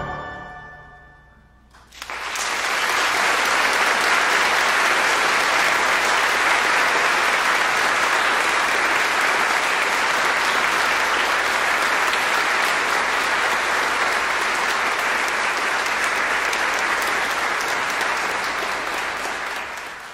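A held organ chord closing the piece rings away, and after a brief hush a large concert-hall audience breaks into steady applause, thinning near the end.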